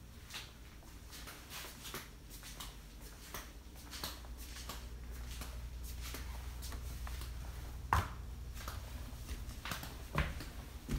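Footsteps and small knocks in a small room as a person walks through with a handheld camera, a sharper knock about eight seconds in and another near the end, over a steady low hum.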